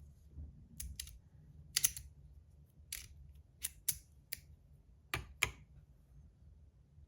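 Sharp clicks and taps, about ten in the first five seconds, some in quick pairs, as a small digital scale and a titanium Modusworks Meathammer Rapt fidget are handled and the fidget is set on the scale to be weighed.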